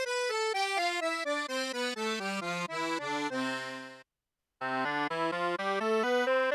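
Tianshuo digital accordion playing a quick melody in one of its right-hand accordion voices. The melody ends on a held chord that cuts off abruptly about four seconds in. After a half-second of silence, a melody starts again in a different accordion voice.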